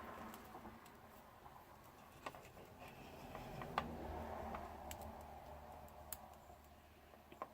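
Light, scattered clicks and taps of small parts and tools being handled at close range, over a soft rustle, with the sharpest click about four seconds in.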